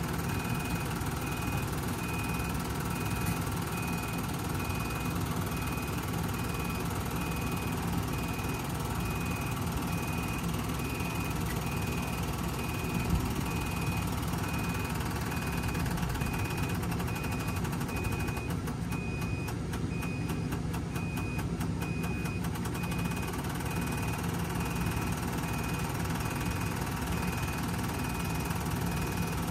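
Small marine diesel engine running steadily, with an electronic beep repeating about one and a half times a second over it.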